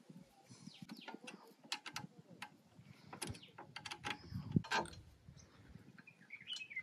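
Faint, irregular metallic clicks and ticks of a slider being fitted and tightened by hand onto the end of a motorcycle crash guard.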